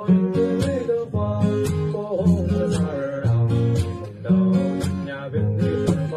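Steel-string acoustic guitar strumming a song accompaniment in C-shape chords with a capo on the first fret, with percussive slaps on the strings mixed into the strum.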